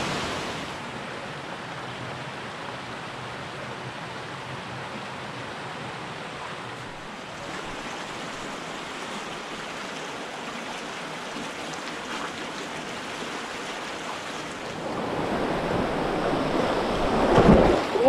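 Steady rush of a canyon stream and its small waterfalls; near the end, louder splashing as booted feet go down into the water.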